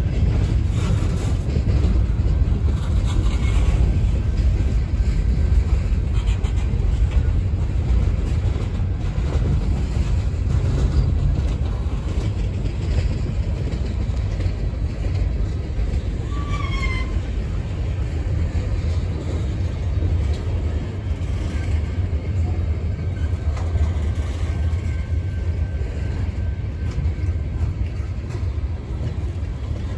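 CSX freight train's cars rolling past at steady speed: a steady low rumble of steel wheels on rail, with faint scattered clicks. A brief high chirp sounds about halfway through.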